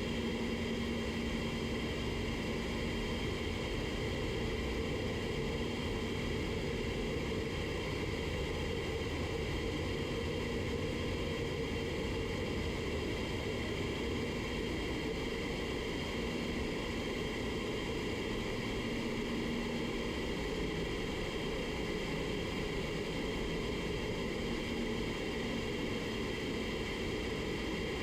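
Steady rush of air with a low fan hum from a paint spray booth's ventilation, unchanging throughout.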